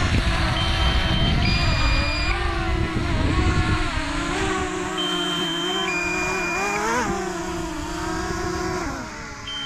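Small folding quadcopter drone hovering close by and descending toward a hand, its propellers whining with a pitch that drifts up and down. A two-tone warning beep, high then lower, sounds three times: the low-battery alert. A low wind rumble on the microphone during the first few seconds.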